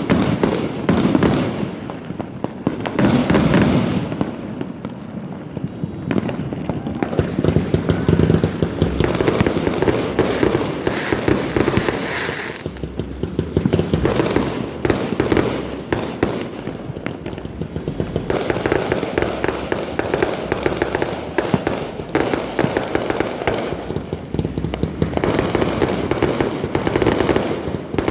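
Fireworks exploding continuously, many sharp bangs in quick succession that overlap into a dense barrage.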